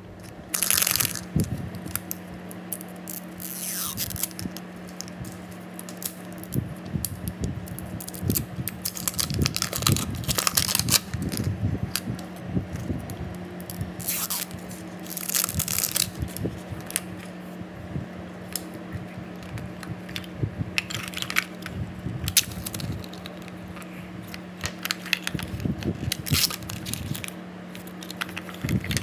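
Plastic shrink-wrap being peeled and torn off a Toy Mini Brands capsule ball, then thin plastic packaging bags crinkling in the hands. The sound comes as irregular rustles and crackles with short pauses between them.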